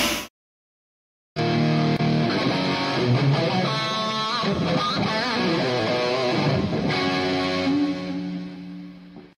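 Electric guitar music with sliding notes, starting after about a second of silence and fading out near the end.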